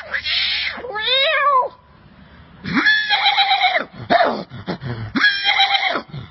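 A person imitating a cat: about five drawn-out meows and yowls in a row, each with a bending, wavering pitch.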